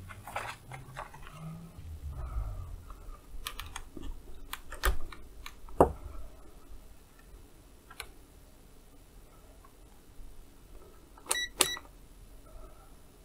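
Handling clicks from a Kaiweets HT118A digital multimeter: its rotary selector switch is turned with a run of sharp clicks in the middle, the loudest about six seconds in, then two quick clicks near the end as the meter is handled at its input jacks.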